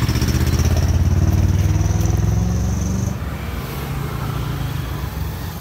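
Motorcycle engine running close by amid street traffic, stopping abruptly about three seconds in and leaving a quieter background murmur.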